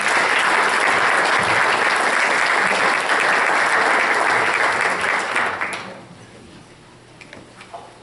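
Audience applauding, dying away about six seconds in, with a few faint clicks near the end.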